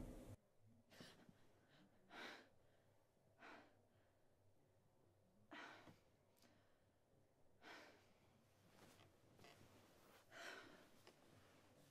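Near silence broken by a handful of faint breaths and sighs, a second or two apart, from a young woman waking up.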